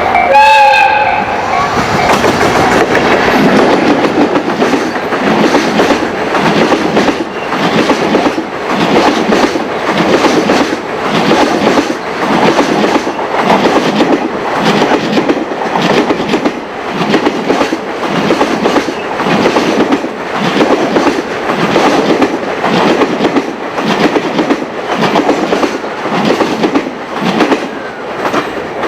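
A train horn sounds and stops about a second in. Then a long freight train's wagons clatter past over rail joints in a steady clickety-clack rhythm, about one group of clacks a second as each wagon's bogies cross the joint.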